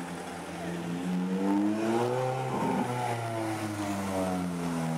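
Ferrari F430's V8 exhaust as the car drives past. The engine note climbs in pitch as it comes on, then drops sharply about halfway through as the car passes and pulls away.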